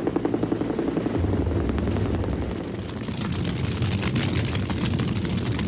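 Helicopter rotor beating rapidly, about ten beats a second. About a second in, it gives way to a steady deep rumble with scattered crackle, in keeping with a bomb burst on the hillside below.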